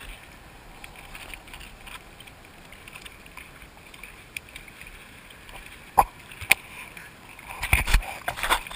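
Faint steady hiss from a camera lying on the ground, then two sharp knocks about six seconds in and loud close rubbing and knocking near the end as a dog reaches the GoPro and noses it.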